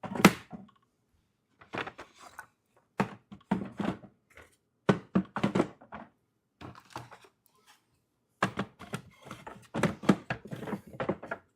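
Beehive frames being set into a cedar hive box, giving an irregular series of short wooden knocks and clunks as they bump against the box and each other.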